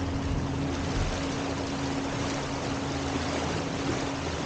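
Small electric boat under way, its motor humming at one steady pitch over a steady rushing noise.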